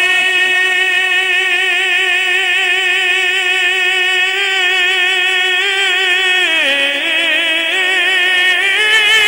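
A man singing a naat, drawing out one long held note with a slight waver; about six and a half seconds in the pitch drops lower, and it climbs again near the end.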